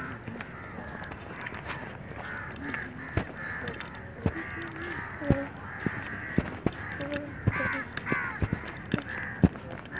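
Crows cawing repeatedly, harsh calls overlapping, with a few sharp clicks scattered through.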